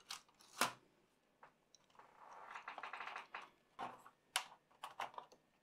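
Samsung NP-R519 laptop keyboard being turned over and fitted into its plastic palm rest: a few light clicks and taps, with a soft scraping rustle about two seconds in.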